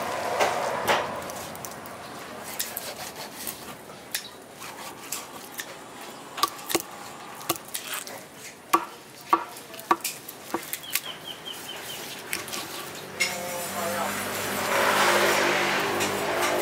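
Knife tapping, chopping and scraping on a wooden chopping block as grouper is cut into fillets, a run of sharp knocks and clicks. Near the end a louder steady noise with a low hum builds up.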